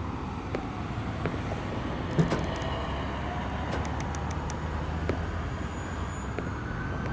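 Urban traffic ambience from a film's placeholder soundtrack: a steady low rumble of vehicles with a faint siren tone falling away in the first second. A few light knocks sound over it, the sharpest about two seconds in.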